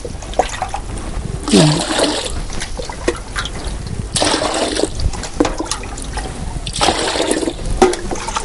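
Water being poured into a container in three separate gushes, each about a second long: 5 litres of water measured out for soaking rice seed.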